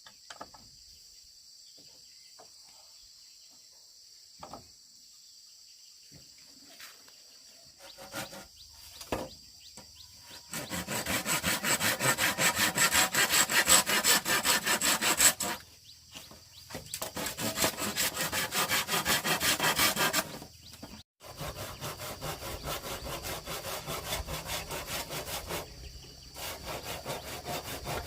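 Rapid, rhythmic scraping strokes, several a second, starting about ten seconds in and going in runs broken by brief pauses.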